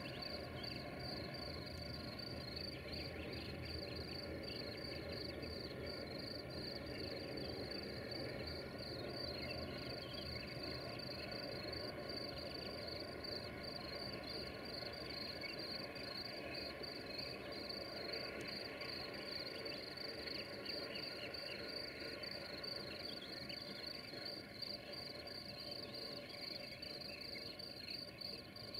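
Insects chirping steadily in a fast, even pulse of about four a second, over a faint, steady low drone from the diesel locomotives of a distant freight train climbing a grade.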